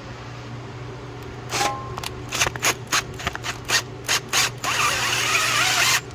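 Cordless drill boring into the broken plastic wheel speed sensor stuck in a steering knuckle. It runs in short stabs of the trigger, about three a second, from about a second and a half in, then is held on for over a second near the end.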